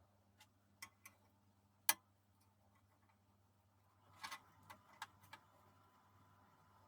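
A few sharp, scattered clicks and light knocks, the loudest about two seconds in and a quick cluster around four to five seconds, over a faint steady low hum.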